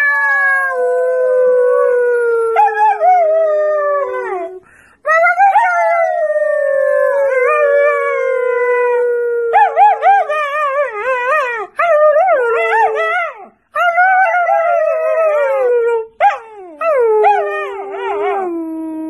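German shepherd puppy howling: two long howls that slide down in pitch, then a run of shorter, wavering howls in the second half.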